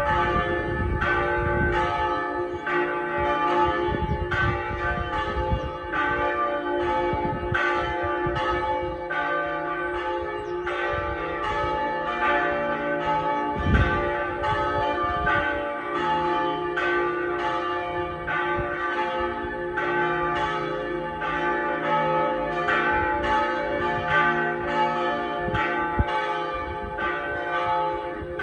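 Pershore Abbey's church bells being rung, only a reduced set of fewer than half the ring, striking one after another in a steady repeating round, each stroke ringing on into the next.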